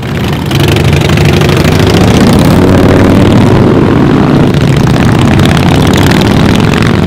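A loud vehicle engine running at a steady pitch, fading in at the start.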